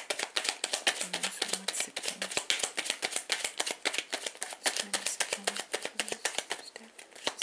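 A deck of tarot or oracle cards being shuffled by hand: a continuous run of quick, crisp card clicks, many to the second.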